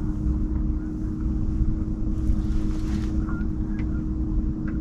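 Boat motor running steadily with a constant low hum, with wind on the microphone.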